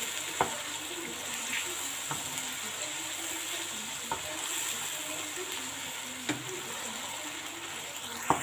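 Chicken and tomato paste sizzling as they fry in a karahi, stirred with a wooden spatula that knocks against the pan about every two seconds.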